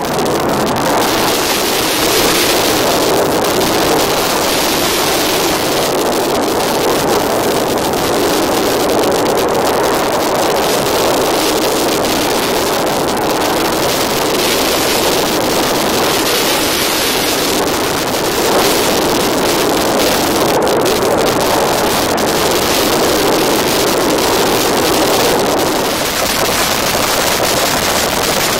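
Natural gas burning as it escapes from a ruptured high-pressure pipeline: a loud, steady rushing noise with no breaks or pitch.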